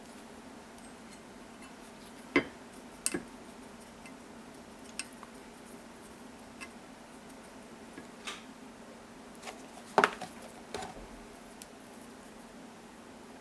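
Irregular light clicks and clinks of small metal parts and tools being handled and set down while working on a spring-piston air rifle, about ten in all with the loudest pair about ten seconds in, over a steady low hum.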